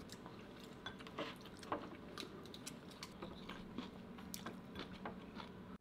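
Faint, scattered light clicks of wooden chopsticks against a ceramic rice bowl as rice is picked up.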